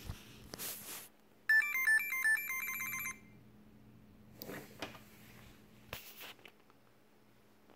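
Pixhawk flight controller's piezo buzzer playing its power-up tune, a quick run of stepped beeps that grows faster toward its end, lasting about a second and a half: the controller is booting on the alternate power supply. Wire and connector handling makes brief clicks and rustles before and after it.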